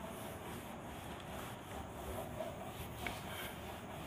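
Board duster being rubbed back and forth across a whiteboard, wiping off marker writing: a continuous scrubbing rub.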